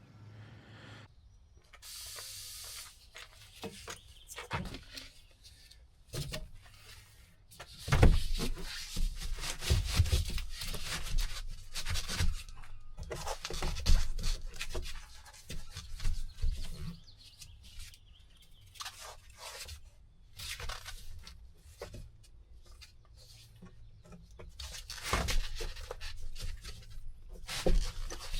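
Ribbed rubber floor mat being worked into place on a truck cab floor: irregular rubbing and scraping with scattered knocks.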